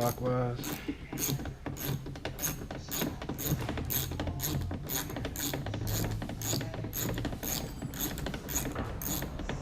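Ratchet wrench clicking in a steady rhythm of about two clicks a second as it is worked back and forth, turning a small 9/32 bolt counterclockwise to loosen the exterior door handle's retaining bolt.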